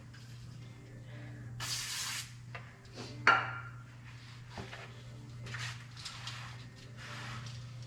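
Hand work on a truck's wheel hub: a short hiss, a sharp ringing metal clink, and scattered small knocks and rubs of parts and tools being handled, over a steady low hum.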